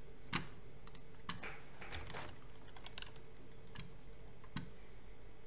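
Scattered sharp clicks of a computer mouse and keyboard, about eight spread irregularly, over a faint steady hum of room noise.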